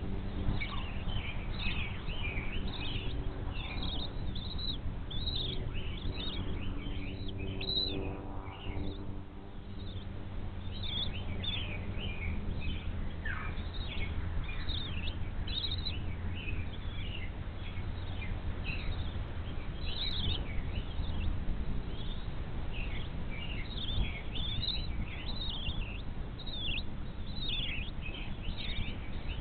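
Birds chirping, many short high calls in quick succession, over a steady low hum.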